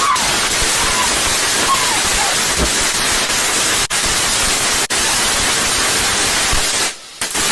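A lit firework fountain spraying sparks with a loud, steady hiss. The hiss drops out briefly twice in the middle and again near the end, then starts up once more.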